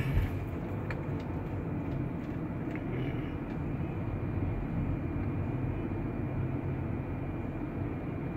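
Steady low rumble of a car's engine and tyres heard from inside the cabin while it drives slowly.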